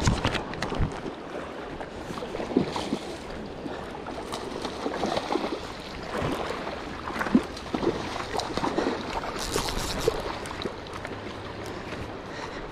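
River water flowing and splashing, with irregular small splashes and knocks through it and a brighter splash about ten seconds in.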